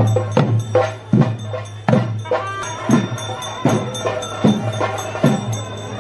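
Theyyam percussion music: loud drum strokes every half second or so, over a steady low hum.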